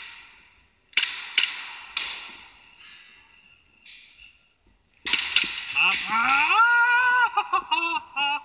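Airsoft pistol shots: three sharp reports echoing in a large hall, about a second apart. About five seconds in, a few quick clacks are followed by a long, loud drawn-out shout. The shout rises in pitch, is held for about two seconds, then breaks into short cries.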